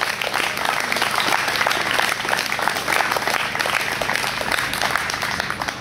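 Outdoor crowd applauding, a dense steady clapping that thins out near the end.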